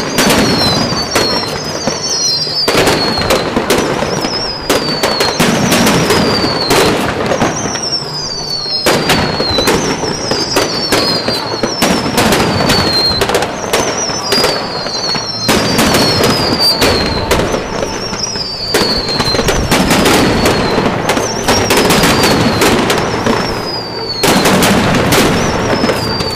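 Aerial fireworks shells bursting one after another, a dense run of sharp reports throughout. A high, falling whistle repeats about every two seconds behind them.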